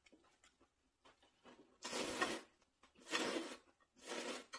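Thin noodles in spicy mixed-noodle sauce being slurped loudly, three slurps about a second apart, each lasting about half a second. Before them come a few light chopstick clicks.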